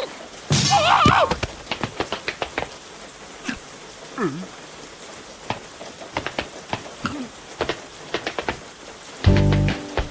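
Cartoon rain sound effect: scattered raindrop drips and taps, after a short wavering squeal from a cartoon larva character near the start, with a few small vocal noises in between. Music starts near the end.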